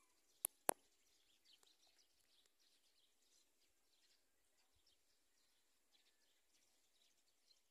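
Near silence: faint rural outdoor background with a few faint high chirps, likely small birds, and two sharp clicks about half a second in.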